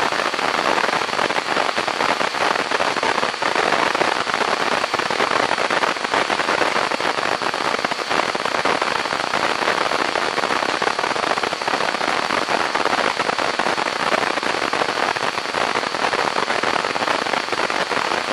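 Dense, steady crackling and popping noise.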